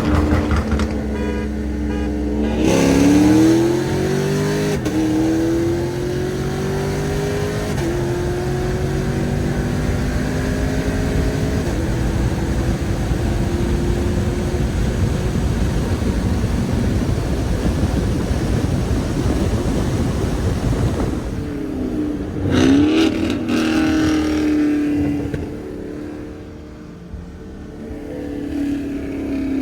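Car engine accelerating through the gears: its pitch climbs and drops back at each upshift about two and a half, five and eight seconds in, then eases off. A steady drone of engine and road noise follows while cruising, with one more brief rev about three quarters of the way through before it quietens.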